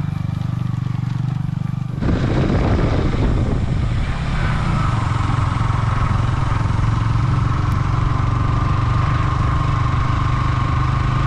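Motorcycle engine running steadily while riding. About two seconds in the sound changes abruptly and becomes louder and noisier.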